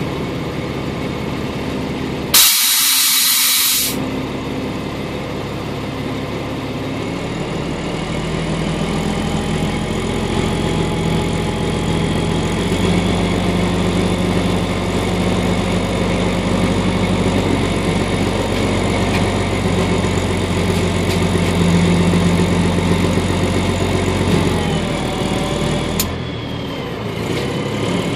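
A stopped vehicle's engine idling, with a loud hiss about two seconds in that lasts over a second. From about eight seconds the engine runs faster and louder, then settles back with a sharp click near the end.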